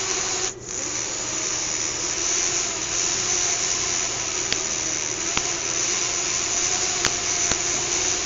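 Small fischertechnik electric motor spinning a propeller with a steady whirring hum. About half a second in it cuts out briefly and starts up again as its direction is reversed.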